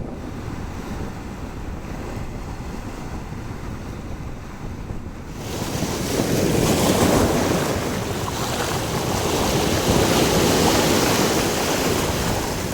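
Strong wind buffeting the microphone over the rush of surf on the beach. About five seconds in the noise swells, louder and hissier, and holds until it eases near the end.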